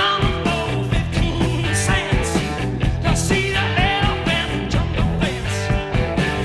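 Rock music with a singing voice, bass and drums, playing continuously.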